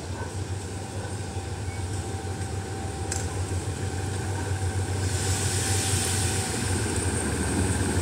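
Diesel locomotive of a passenger train approaching slowly, its engine running with a low steady hum that grows gradually louder. About five seconds in a hiss joins it as the train draws near.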